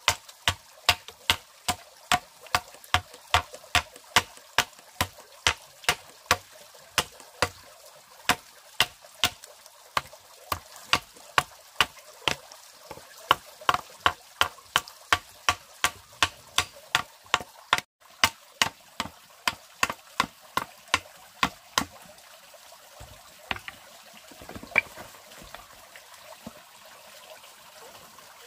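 Hand tool striking wood in a steady rhythm, about two blows a second, over a steady background hiss; the blows stop about 22 seconds in, followed by a couple of lighter knocks.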